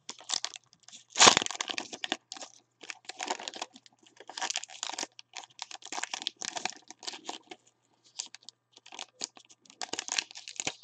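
Hands handling trading cards and a foil card-pack wrapper: irregular rustling and crinkling, with a sharper crackle about a second in.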